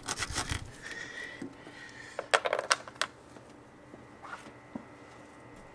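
Sharp clicks and light clatter of small parts and tools being handled, a quick run of them in the first three seconds, then fading to faint steady background.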